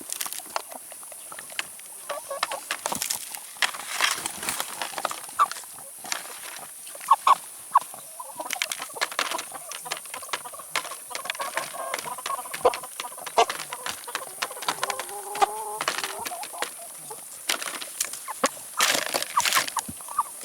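Chickens clucking while pecking at salad and vegetables, with many quick sharp taps of beaks and a longer drawn-out cluck about fifteen seconds in.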